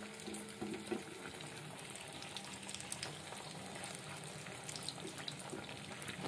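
A nargis kebab deep-frying in hot oil, bubbling and sizzling steadily, with a few light knocks of a plastic slotted spatula against it and the pan.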